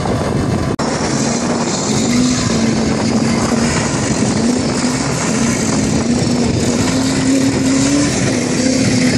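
Vehicle engine running hard at high revs, its pitch wavering and slowly climbing, over a steady hiss. The sound briefly cuts out about a second in.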